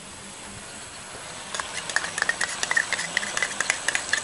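Pork and curry-paste sauce simmering in a wok: the thick sauce bubbles and spits, with a rapid run of crackling pops that starts about a second and a half in.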